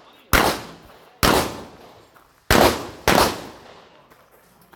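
Four handgun shots at an uneven pace, each sharp crack followed by a short echo; the last two come close together.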